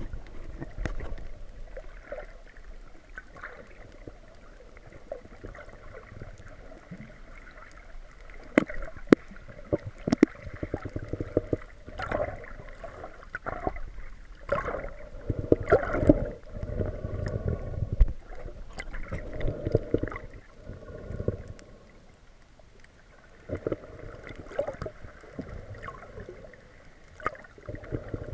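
Muffled underwater sound picked up through an action camera's waterproof housing: water sloshing and gurgling in uneven swells, with scattered sharp clicks and knocks.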